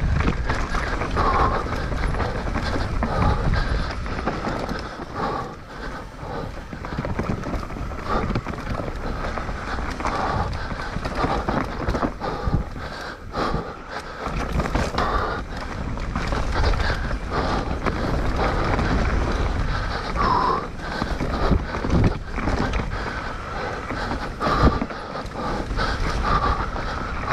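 Mountain bike ridden hard down an enduro race stage: tyres rolling and the bike rattling and knocking over rough trail, with wind noise on the microphone and the rider's heavy breathing.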